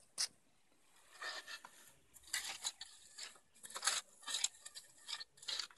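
Stones and a metal bowl being shifted around a small wood fire on sand: a sharp click near the start, then a string of short, irregular scrapes and knocks.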